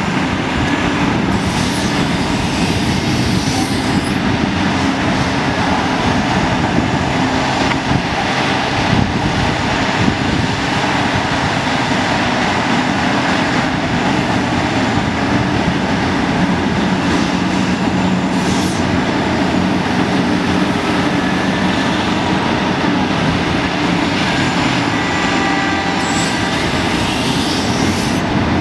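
Caterpillar 5130 hydraulic excavator working under load: its big diesel runs steadily with the hydraulics as the bucket digs and swings. A few brief high hissing surges come and go.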